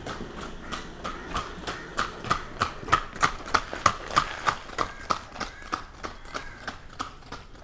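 Horse's hooves striking the ground in a steady clip-clop, about three hoofbeats a second, loudest about three to four seconds in and fading a little after.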